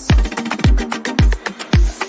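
Background music with a steady beat: a deep kick drum about two times a second, with quick percussion ticks between the hits.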